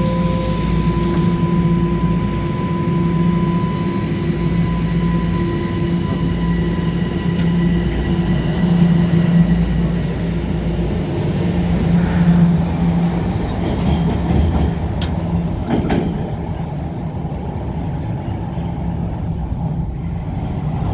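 Toronto subway train on Line 1 running on the rails, with a steady motor hum and a fainter high tone that fade out about two-thirds of the way through. Brief high wheel squeals and clicks follow soon after.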